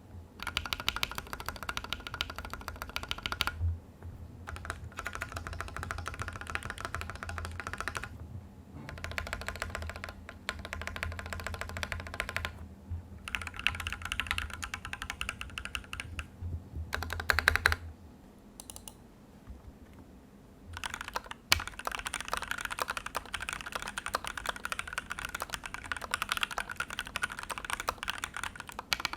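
Typing on a Maja mechanical keyboard with lubed, filmed C³Equalz x TKC Tangerine 67 g linear switches and PBT keycaps: a dense run of keystrokes with short breaks. The first part is typed without case foam; after a pause about two-thirds through, typing resumes with foam installed.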